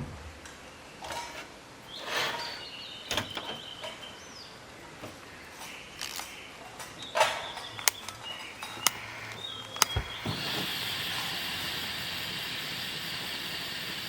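Scattered clicks and knocks of camp gear being handled, with a few short high chirps. After a knock about ten seconds in, a steady hiss starts and continues.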